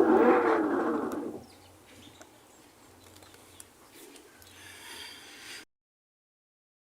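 Samsung top-load washer in its calibration test: the motor drives the agitator through one stroke of about a second and a half, with a whine that rises and falls, then stops. Faint bird chirps follow.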